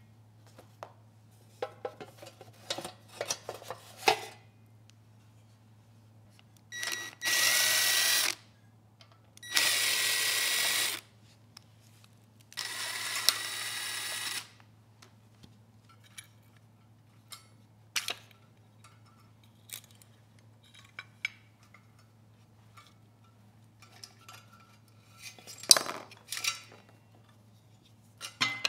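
Cordless drill-driver running in three bursts of a second or two each, backing out the bolts that hold the blower housing on a 10 HP Briggs & Stratton engine. Between and after the runs, small clicks and metallic clinks of bolts and parts being handled.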